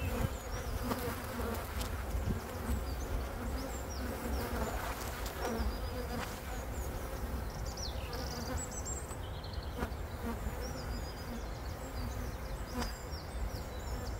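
Honeybees buzzing around an opened hive: a steady hum of many bees in flight.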